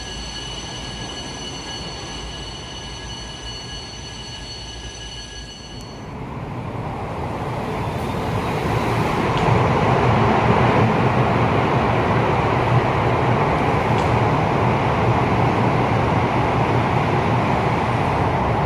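A CRH380A high-speed train moving through an underground station behind platform screen doors: a dense rushing rumble builds over about four seconds, starting about six seconds in, and then stays loud and steady. Before it, a steady high-pitched whine of several tones stops about six seconds in.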